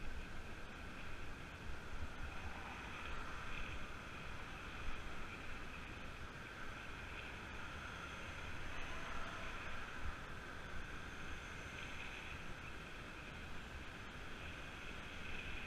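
Road-riding noise on a moving bicycle: wind buffeting the camera's microphone over the hum of tyres on tarmac, steady with small gusts.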